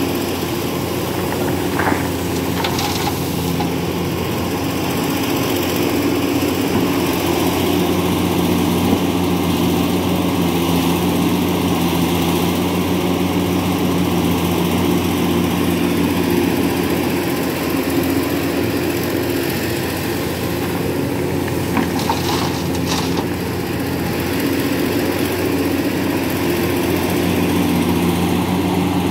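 Heavy diesel engine running steadily at an even pitch, with a few brief knocks about two seconds in and again about two-thirds of the way through.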